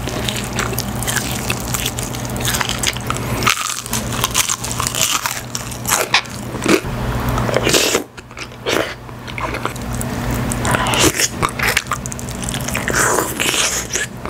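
Close-miked eating: crunchy bites into Korean fried chicken, then wet chewing and mouthfuls taken from a wooden spoon, made up of many short crackles and smacks. A steady low hum runs underneath and drops out briefly twice.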